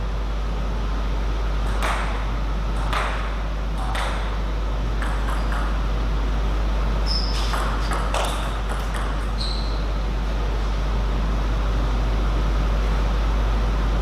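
Table tennis ball clicking off bats and the table in rallies: single knocks about a second apart, then a quicker run of hits, stopping a little after halfway through. Two short high squeaks come among the hits, over a steady low hum.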